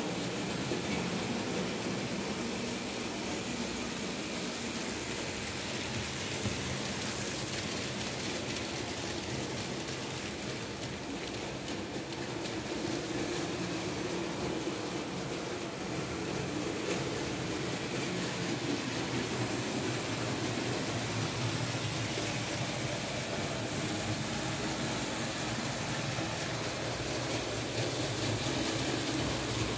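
Märklin H0 model train running on the layout: the BR 23 steam locomotive model's electric motor hums and its wheels and the wagons roll on the metal track. The sound is steady, with a steady hiss.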